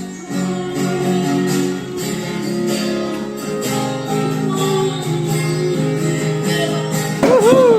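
Taylor Mini G Series acoustic guitar strummed steadily in chords. Near the end a short, loud, wavering pitched sound that bends up and down joins in.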